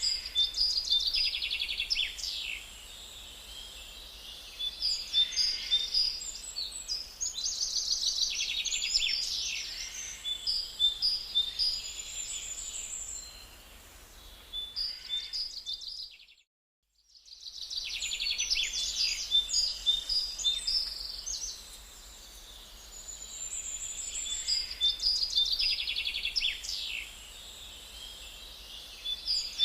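Songbirds singing in repeated, quick trilled and chirping phrases over a faint steady background. The sound cuts out completely for about a second roughly halfway through, then the song resumes.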